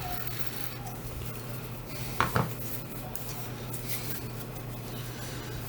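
Light clicks and scraping of small hard parts and tools being handled on a workbench while socketed chips are being pulled and swapped, with two sharp clicks in quick succession about two seconds in, over a steady low electrical hum.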